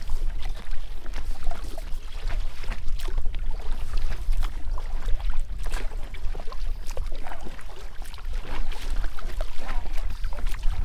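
Water splashing and lapping around a kayak, with many small irregular splashes and drips, over a steady low rumble.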